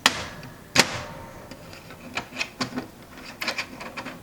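Hard plastic clacks and clicks from a Brother HL-L2380DW laser printer's casing and parts being handled: two sharp clacks in the first second, the second the loudest, then lighter taps and clicks.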